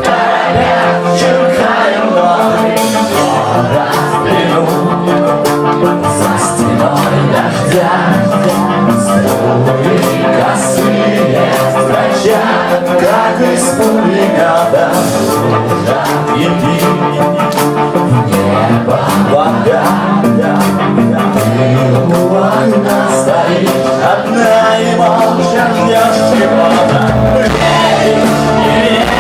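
Live rock band playing a song at concert volume, with singing over dense guitars and drums.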